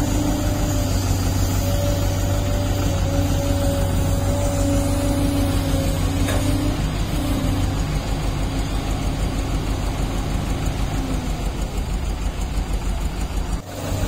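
Diesel engines of heavy construction machines running steadily: a Komatsu motor grader close by and a SANY hydraulic excavator at work. There is a constant low hum and a steady whine, and the whine fades away in the second half.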